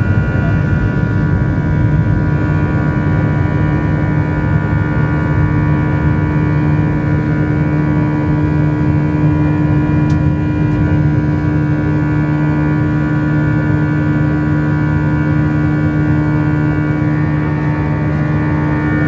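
Jet airliner heard from inside the passenger cabin: a loud, steady engine and airflow drone with several held tones.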